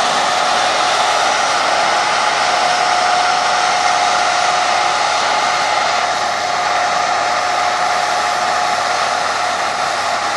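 Claas combine harvesters running while harvesting grain: a steady whirring rush with a high whine held throughout.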